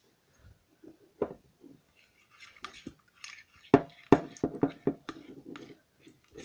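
Metal spoon stirring glue and liquid detergent in a glass bowl as the slime forms: sharp clinks and knocks of the spoon against the glass, loudest a little past the middle, mixed with soft sticky squelches.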